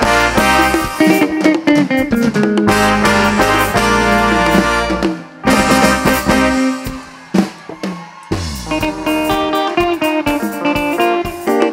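Live highlife band playing instrumentally: electric guitar lines over bass and drum kit. About five seconds in the bass and drums drop out and the music thins and quietens, then the guitars and band come back in fuller about three seconds later.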